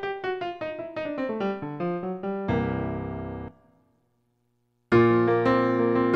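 Yamaha S03 synthesizer keyboard playing a factory preset with a piano-like tone. A descending run of notes ends on a held chord that stops sharply about three and a half seconds in. After a second of silence, louder chords over a low bass begin near the end.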